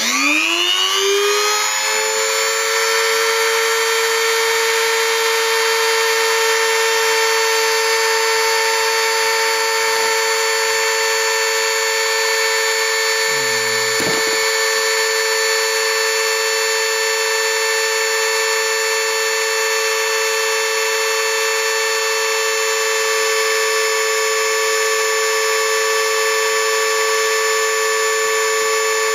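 Mini grinder used as a homemade CNC mill's spindle spinning up with a rising whine, then running at a steady high-pitched whine. A brief low sound comes about halfway through.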